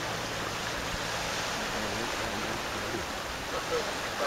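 Steady rush of fast tidal current swirling through a narrow passage on a flood tide.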